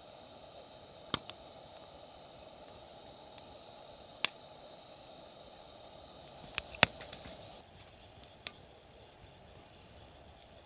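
A few sharp clicks and knocks, the loudest a quick cluster about two-thirds of the way through, over a faint steady hiss that stops soon after the cluster.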